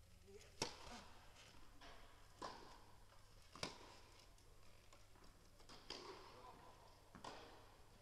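Tennis ball being struck back and forth in a rally: about five sharp knocks of racket hits and bounces, a second or so apart, each ringing briefly in a large indoor hall.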